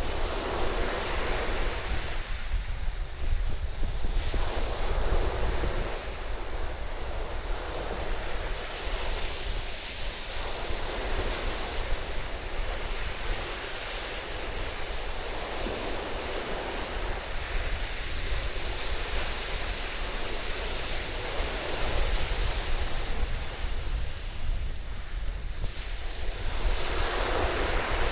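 Surf breaking and washing up the sand in repeated swells every few seconds, with strong wind buffeting the microphone as a steady low rumble.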